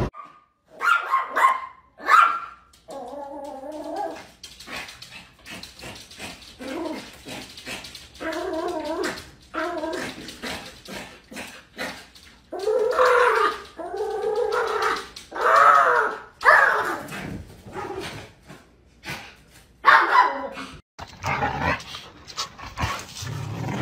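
Small dog barking a couple of times, then whining and yelping in a long run of pitched cries that rise and fall.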